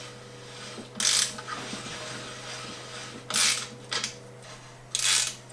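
Hand ratchet wrench clicking in three short bursts, with a few small clicks between, as a pivot bolt on a mountain bike's rear suspension linkage is undone.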